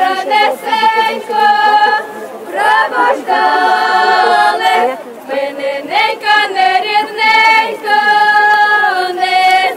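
A group of women and girls singing a Ukrainian folk song together, unaccompanied, in long held notes, with short breaks between phrases about two and five seconds in.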